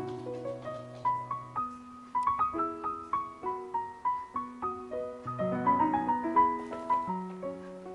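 Background piano music: a melody of single notes moving in steps over held lower notes, each note struck and then fading.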